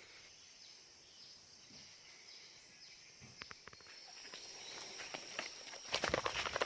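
Quiet outdoor ambience: faint steady high-pitched insect chirring, a few small clicks, and rustling movement noise that grows louder near the end.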